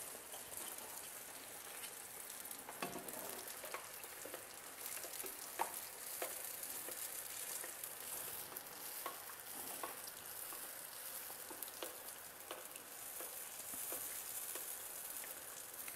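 Hot oil sizzling steadily around a pizza fritta in a frying pan, faint, with scattered small pops and clicks as the pizza is worked with a slotted spoon.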